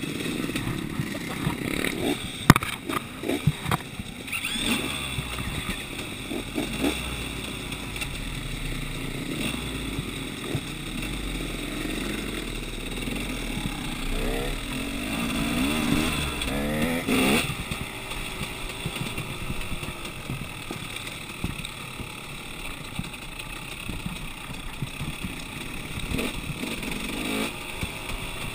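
Dirt bike engine running and being revved, with rising surges of revs in the middle as it pulls away along a rough trail. Several sharp knocks and rattles from the bike are heard early on.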